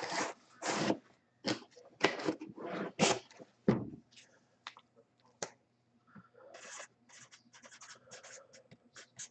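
Rustling and scraping of packaging being handled, in a string of short bursts over the first few seconds, then softer rubbing with a few sharp clicks.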